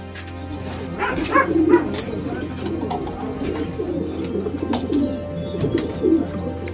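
Pigeons cooing in a coop, several overlapping calls at once, louder from about a second in.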